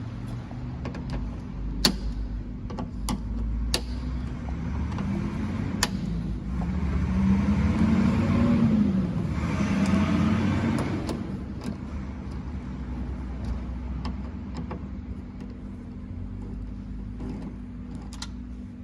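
Scattered metal clinks and clicks of hand tools working on a car door, over a steady low hum. For a few seconds in the middle a louder motor-like whir swells up, rising and then falling in pitch.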